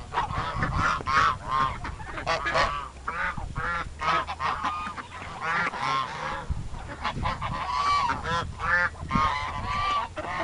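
Farmyard waterfowl honking: many short, repeated calls overlapping one another as the birds feed.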